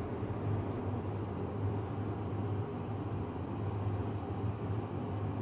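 Steady low hum with an even hiss of background room noise.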